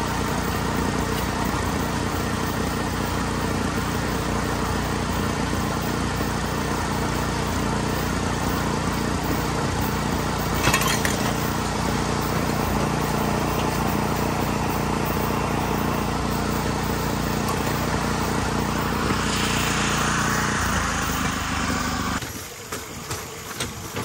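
Small gasoline engine of a motorized rail bike running steadily at speed, with the rail bike's wheels rolling on the track and one sharp knock about 11 seconds in. The engine sound cuts off near the end, leaving a quick run of clicks as the wheels pass over rail joints.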